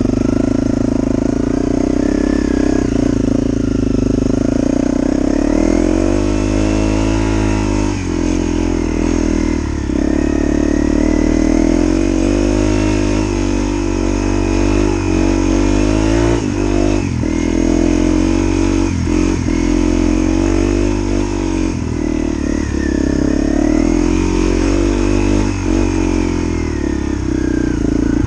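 Honda CRF250L's single-cylinder four-stroke engine running hard off-road, its revs rising and falling over and over with the throttle, with a few short dips where the throttle closes.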